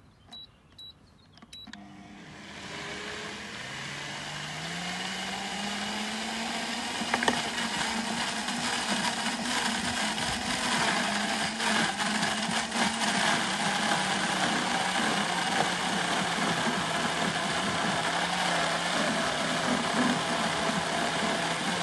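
High-speed blender, a few short beeps as it is set, then its motor winding up over several seconds and running steadily, blending a thick batter of buckwheat flour, water and whole wild greens. The motor's pitch sags slightly near the end before it shuts off.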